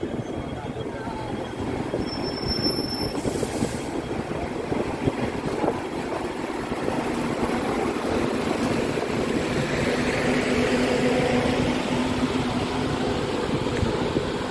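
MTR metro train running with a steady rumble that grows louder past the middle. A faint steady whine runs through the later part.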